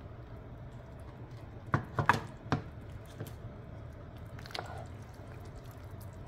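A cooking utensil knocks sharply against a pot of simmering soup: four clinks in quick succession about two seconds in, and one more about halfway through. A steady low hum runs underneath.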